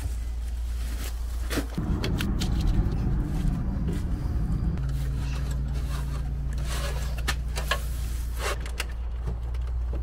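Hand work on wiring inside a generator enclosure: scattered clicks, taps and scrapes of wires, flexible conduit and metal panel parts. Under it is a steady low rumble that grows louder about two seconds in and settles into a steady low hum about halfway through.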